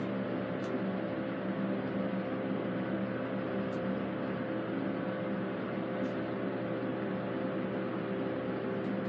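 Schindler MT hydraulic elevator car travelling down, a steady hum made of several held tones over an even whir.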